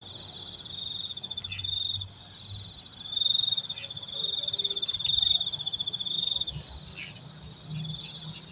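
Crickets calling: one pulsing trill at a single high pitch in long bouts that stop and start, over a steady, higher, unbroken chorus of other insects.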